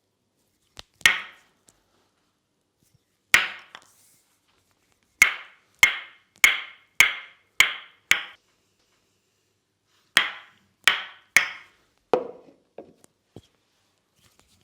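Tok-Sen massage: a wooden mallet tapping a wooden wedge pressed against the body, giving sharp, woody knocks. There is a single knock, then a quick run of six at about two a second, then three more and a few duller, softer knocks near the end.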